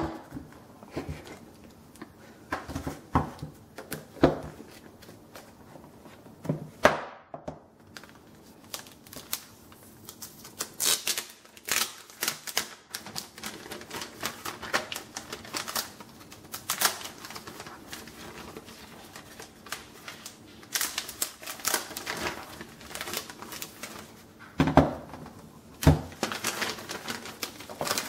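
Irregular clicking and tapping of a newly unboxed Apple keyboard being handled and its keys pressed, with a few louder knocks.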